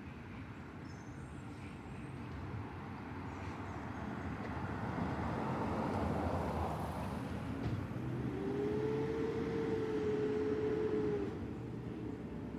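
Garbage truck working down the street: a steady low engine rumble that grows louder through the middle, and a whine that rises and holds for about three seconds before cutting off near the end, as the engine revs.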